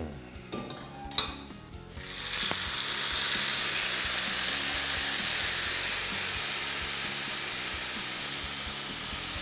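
A thick marinated beef rib steak (côte de bœuf) goes into a very hot frying pan of olive oil about two seconds in, setting off a loud, steady sizzle as the meat sears, easing slightly toward the end. A single sharp click comes just before.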